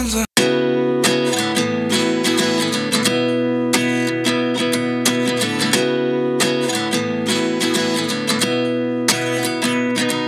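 Background music: a strummed acoustic guitar passage with no singing, starting after a sudden break in the song.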